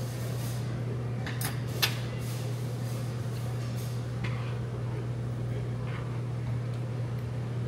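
Eating utensils clicking against tableware a few times over a steady low hum, the sharpest click about two seconds in.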